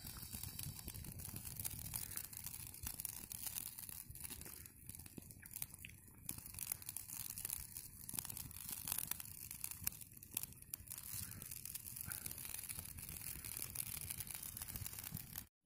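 Small wood fire of twigs and dry leaves crackling under a cooking pot: a dense, steady stream of small sharp crackles over a hiss.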